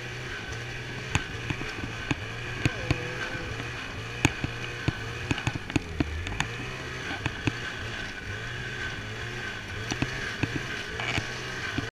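Ski-Doo Summit 600 snowmobile engine idling low and steady, with many short sharp clicks scattered over it.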